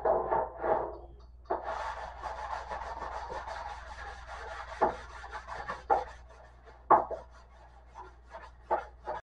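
Hand tool rubbing and scraping over the bare steel of a stripped 1963 Chevy C10 door panel in quick rasping strokes, as the panel's dents are worked before body filler. Two ringing metal clanks open it, and a few sharp knocks come in the second half.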